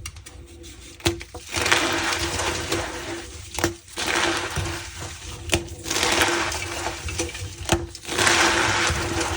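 Reformed gym chalk being crushed with a squeaky crunch, in about four stretches of crumbling broken by brief pauses and sharp clicks.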